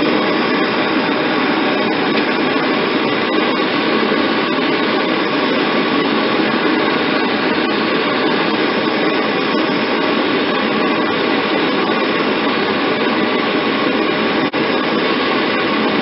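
Propane torch flame burning with a steady hiss as it heats a band saw blade joint to melt silver braze.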